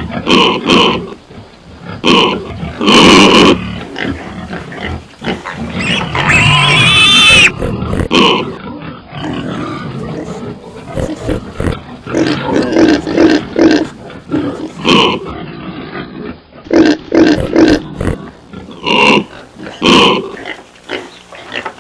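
Pigs grunting in short, repeated bursts, with a long, high-pitched squeal that rises and falls about six seconds in.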